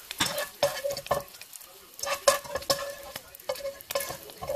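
Wire spider skimmer scraping and knocking against a nonstick wok while scrambled eggs are scooped out, a dozen or so irregular strokes, each ringing briefly. Frying sizzle from the clarified butter in the pan runs underneath.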